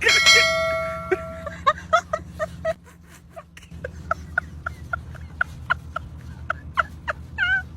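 Chicken clucking in a string of short, evenly spaced calls, after a ringing chime-like tone at the start.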